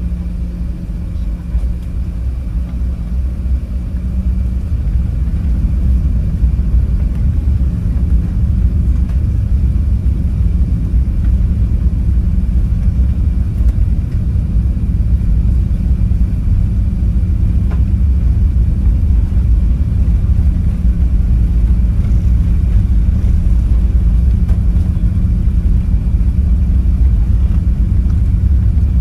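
Low, steady rumble of an Airbus A380 heard from inside the cabin as the airliner rolls on the ground with its engines running, slowly growing louder.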